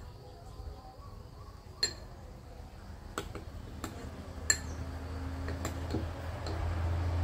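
Metal spoon clinking and scraping against a small ceramic bowl, several sharp clinks a second or so apart as the dessert is stirred and scooped. A low rumble grows louder through the second half.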